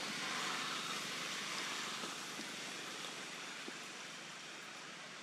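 Steady hiss of outdoor background noise, fading a little toward the end, with a few faint ticks.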